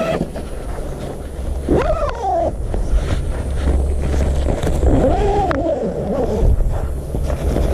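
Tent fabric handled and rustling, with a steady low rumble of wind on the microphone. Over it, an animal gives three drawn-out calls that rise and then fall, about two seconds in and again around five seconds.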